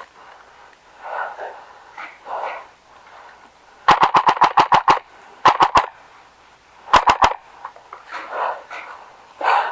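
Airsoft rifle firing on full auto: a rapid burst of about ten shots about four seconds in, then two short three-shot bursts.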